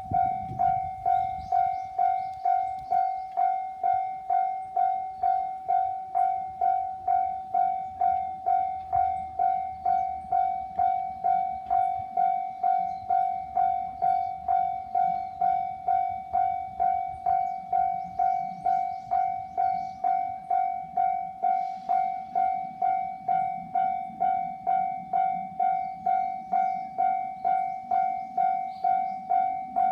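Japanese level-crossing warning bell ringing, an electronic tone struck evenly at a little under two strikes a second. A train rumbles past beneath it, growing louder from about halfway through.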